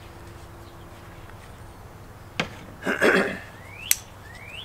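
Handling and opening a plastic two-stroke oil bottle. There is a click, a loud rustling scrape, then two short rising squeaks that each end in a sharp snap.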